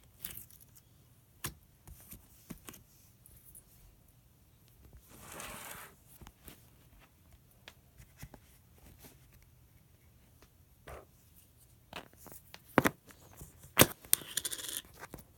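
Homemade slime being squished and stretched by hand, giving scattered sticky pops and clicks, with a longer noisy stretch about five seconds in and a louder cluster of pops near the end.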